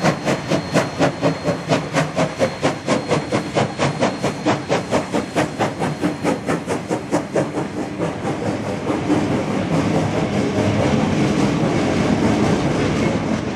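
Queensland Rail steam locomotive working past, its exhaust chuffing about four times a second. From about eight seconds in, the chuffs fade under the steady rolling noise of the carriages it hauls going by.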